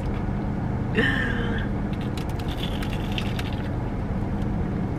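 Crunching bites into a crumb-coated Korean fried cheese corn dog, a cluster of sharp crackles about two to three seconds in, over a steady low hum. A short vocal sound about a second in.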